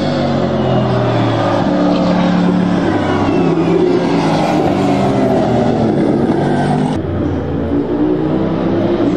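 Toyota/Lexus GR GT3 prototype race car passing, its engine, which is thought to be a twin-turbo V8, giving a deep, throaty note. The pitch falls and rises as it works through a corner and pulls away. About seven seconds in the sound jumps abruptly to another pass.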